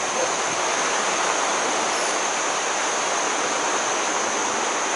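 Steady rushing of a stream, an even hiss with no breaks, with a thin steady high tone above it.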